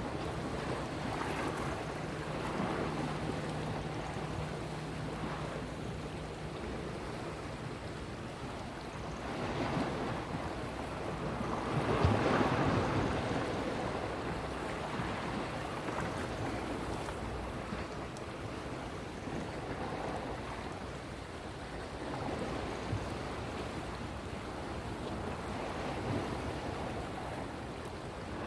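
Sea waves washing in, the noise swelling and fading every few seconds, with the biggest surge about twelve seconds in. A faint low hum runs under the first several seconds.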